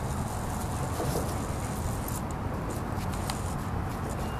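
Wind noise on the microphone: a steady low rumble, with a few faint ticks above it.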